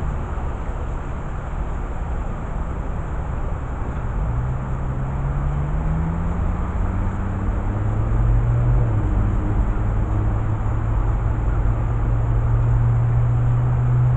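Steady outdoor rumble with a vehicle engine's low drone coming in about four seconds in, rising a little in pitch, then holding steady and getting louder.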